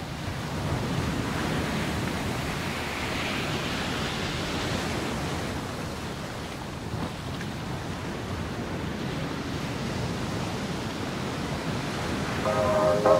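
Ocean waves and surf, a steady rushing of water around the camera. Music comes in near the end.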